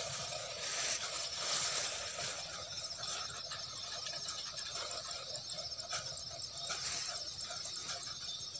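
Open-field ambience: a steady, high-pitched chirring of insects, with a few soft clicks and small splashes as hands work in shallow muddy water.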